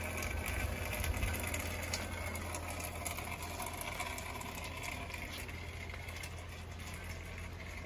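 Light rain pattering and dripping, with many small ticks, over a steady low hum.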